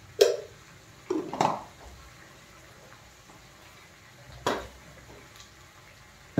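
Steel kitchen utensils and vessels clanking, about five separate sharp knocks with a short ring: one just after the start, two close together about a second in, one a little past four seconds, and one at the very end.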